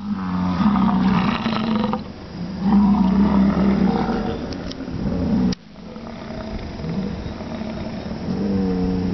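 American bison bellowing: several long, low calls, with one more near the end. In late July this is typical of bulls in the summer rut.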